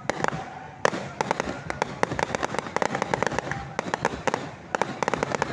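Fireworks going off in a dense run of rapid pops and crackles, the loudest a sharp bang just under a second in.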